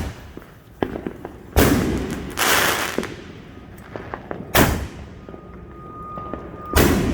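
Consumer fireworks going off: four loud bangs about two seconds apart, with smaller pops and crackle in between.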